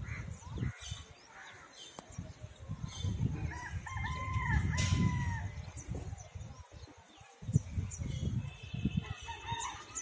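A rooster crowing once near the middle, over an irregular low rumbling.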